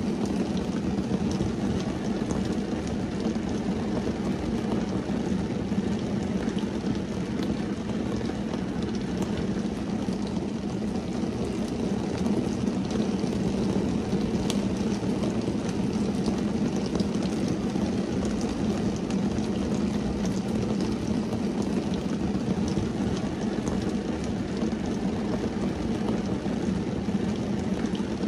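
Rain falling steadily on a car's windscreen, heard from inside the car: a dense, even patter of drops over a low, steady rumble.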